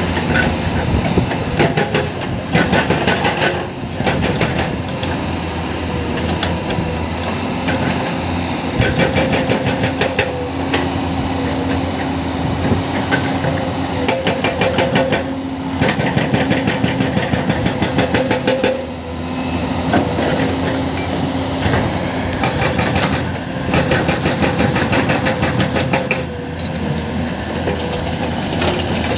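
Heavy excavator's diesel engine running steadily, with several bursts of rapid, evenly spaced metallic clattering a second or two long.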